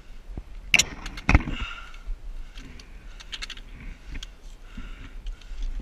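Sharp knocks and scrapes from a hand-held camera being bumped as its holder pushes through conifer branches, two loud ones about a second in, followed by rustling of branches and scattered small clicks and steps on rock.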